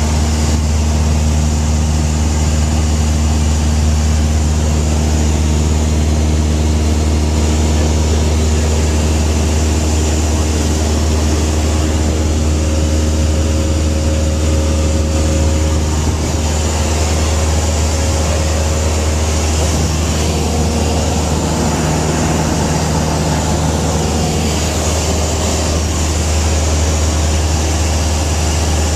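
Light aircraft's engine and propeller running steadily in flight, heard inside the cabin: a loud, even, low drone with several steady tones above it.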